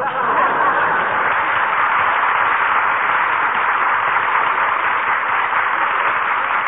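Studio audience applause, steady and even.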